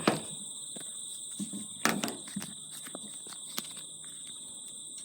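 A few sharp knocks and handling clicks, the loudest near the start and about two seconds in, over a steady high-pitched two-tone whine, much like insects chirring.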